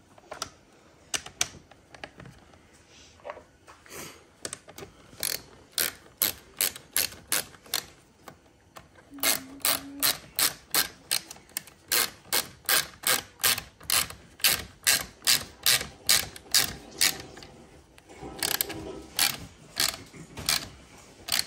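Hand ratchet driving in the hand guard's bar-end bolt, its pawl clicking. A few scattered clicks at first, then an even run of about two to three clicks a second, and a quicker cluster near the end.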